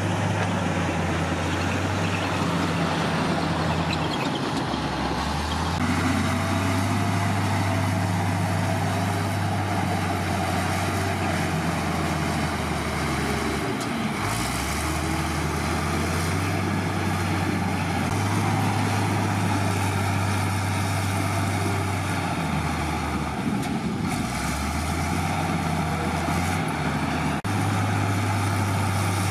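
Heavy diesel engine of earthmoving machinery running under load, its low drone shifting between a lower and a higher pitch every few seconds as the throttle and load change.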